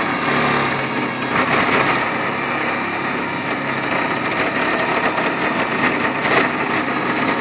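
Swift Washer prototype's motor-driven rollers and belt running dry, without water: a steady mechanical whir with light clicks scattered through it.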